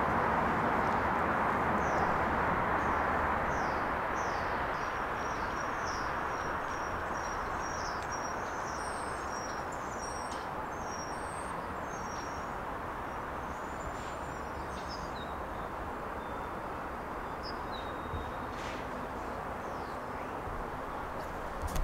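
Small birds chirping, quick series of short high notes through the first half and sparser ones later, over a steady hiss of distant city traffic that eases off slightly after the first few seconds.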